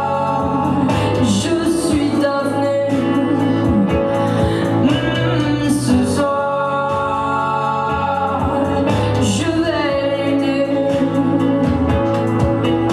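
Live band music: a woman singing lead over electric guitar and keyboard.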